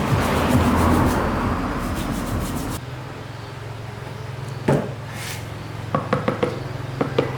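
Workshop hand-work noise: a harsh scraping noise that stops abruptly about three seconds in, then a steady low hum with a few sharp knocks, most of them bunched together near the end.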